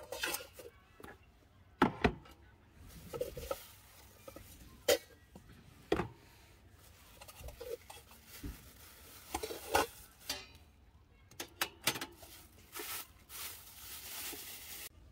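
Stainless steel pots and bowls clinking and knocking as they are handled and stacked, a dozen or so scattered strikes, with rustling near the end.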